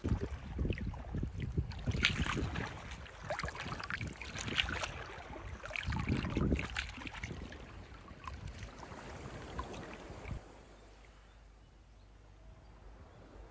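Small waves lapping and sloshing irregularly against shoreline rocks, with a low wind rumble on the microphone. About ten seconds in it drops to a quieter, faint outdoor hush.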